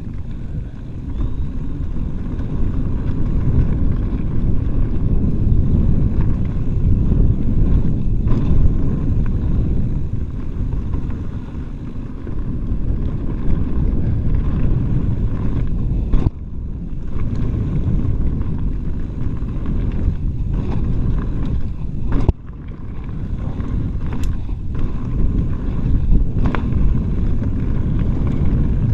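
Mountain bike rolling fast down a dirt singletrack: wind rumble on the microphone over the rattle of tyres and bike on the trail, with a few sharp knocks from bumps, the clearest about 16 and 22 seconds in.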